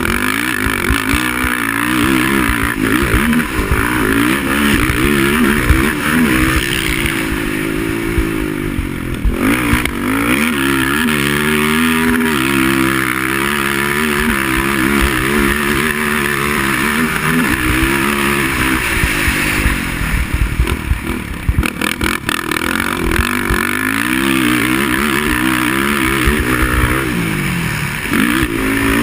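Racing quad (ATV) engine running hard, revving up and down repeatedly as the throttle opens and closes.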